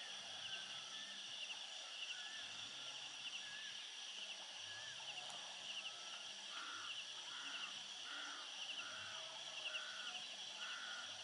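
Insects chirring steadily at a high pitch, with scattered short bird calls. In the second half a creature gives a short call six times, a little under a second apart.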